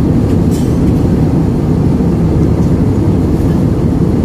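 Steady, deep rumble of a jet airliner's cabin in flight: engine and airflow noise heard from a window seat.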